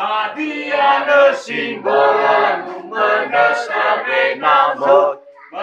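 A group of voices singing a Nias song together in chorus, phrase after phrase. The singing breaks off briefly about five seconds in.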